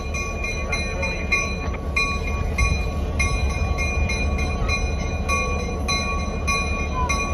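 Y&S 18 diesel locomotive's bell rung steadily, a few clangs a second, over the low rumble of the locomotive's engine as it rolls slowly in.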